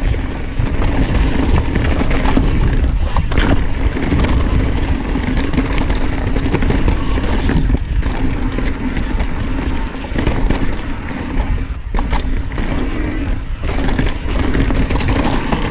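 Santa Cruz Hightower LT mountain bike riding fast down a dirt singletrack: heavy wind rush on the action camera's microphone, with tyre roll and the bike rattling and clicking over bumps. A steady buzz drops out briefly a few times.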